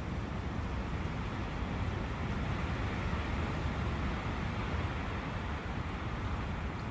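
Brook running in a forest: a steady rushing wash of water with a low rumble underneath, swelling a little midway.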